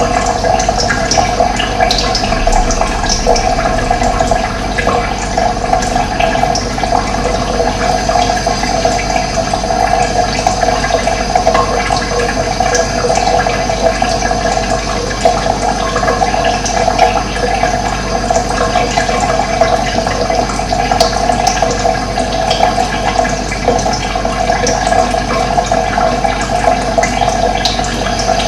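Steady, unbroken rush of running water, with faint short bird chirps scattered over it.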